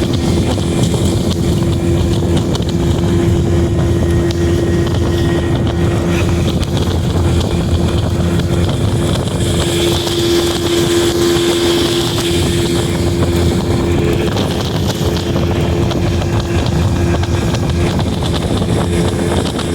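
Old Evinrude 85 V4 two-stroke outboard running steadily with the boat under way, a constant hum over wind noise on the microphone.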